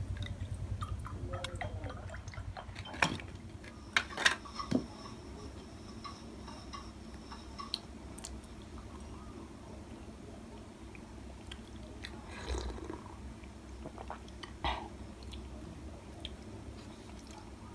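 Tableware being handled: a cluster of sharp clinks and knocks from a ceramic mug and a wooden plate about three to five seconds in, then a few softer knocks later, over a low steady hum.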